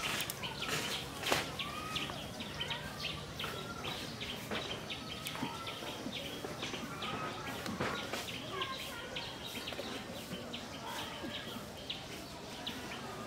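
Small birds chirping and calling in quick, repeated high notes, with a few short sharp knocks mixed in.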